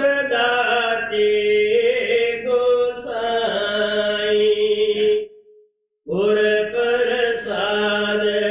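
Devotional singing: a voice holding long, drawn-out notes in phrases, with a break of about a second a little past halfway.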